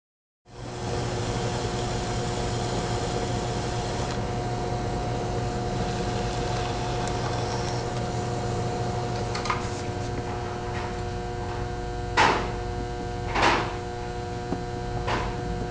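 Electric pottery wheel motor running with a steady hum. In the second half come a few short clay knocks, two louder ones close together, as the leather-hard lid is set into the teapot's gallery to check the fit.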